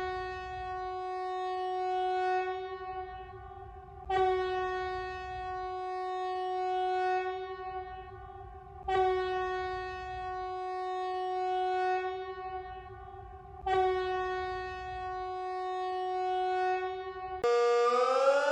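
Emergency alert alarm: a steady horn-like tone sounded in four long blasts of about four and a half seconds each, back to back, each starting sharply and swelling toward its end. About a second before the end a siren begins, rising in pitch.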